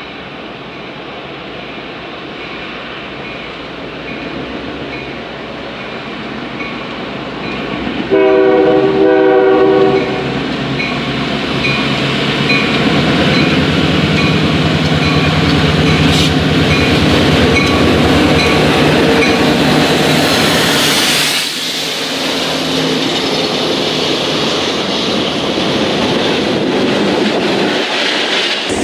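Diesel locomotive of a rail-wash train approaching, its rumble building, then sounding its horn in two blasts about eight seconds in. It then runs past close by with a loud, steady engine sound and wheel noise on the rails.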